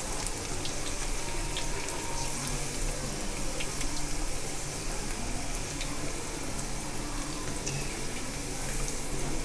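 Pakoda (gram-flour fritters) deep-frying in hot oil in a steel kadai: a steady sizzle with scattered small pops and crackles. The oil is still bubbling hard, a sign that the pieces are not yet cooked through inside.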